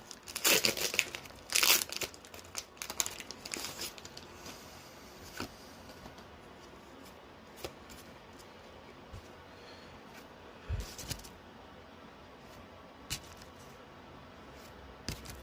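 Foil wrapper of a Pokémon booster pack crinkling and tearing open for the first few seconds. After that, quieter handling with occasional soft clicks and rustles.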